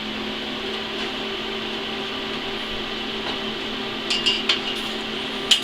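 AHP AlphaTIG 200 inverter TIG welder just switched on, its cooling fan and electronics running with a steady hum and hiss. A few small clicks come about four seconds in.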